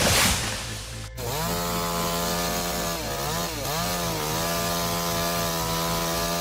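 Chainsaw engine running at high revs with a steady whine, its pitch dipping briefly once partway through as the throttle eases or the saw is loaded. Before that, about the first second is a noisy rushing crackle that cuts off abruptly.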